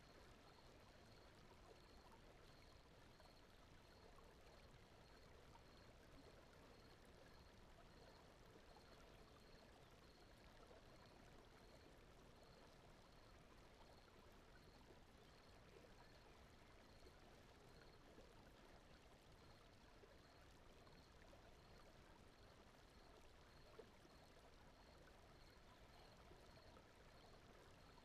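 Faint, steady brown noise, a soft even rush like running water, with a faint high pulse repeating about one and a half times a second.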